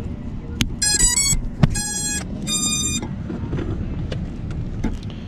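FPV quadcopter's motors sounding the speed controllers' power-up tones as the battery is connected: a quick rising three-note chime, then two longer beeps, low then higher. A couple of sharp handling knocks come with it.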